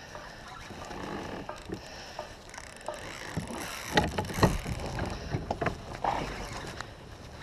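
Water lapping around a plastic pedal kayak, with scattered clicks and knocks as the baitcasting rod and reel are worked against a hooked fish. The knocks are sharpest about four seconds in.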